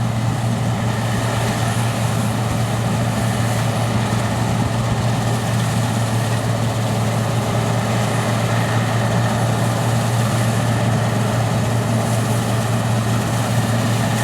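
Combine harvester running steadily at work, a constant engine drone with a strong low hum and a broad whir of machinery over it.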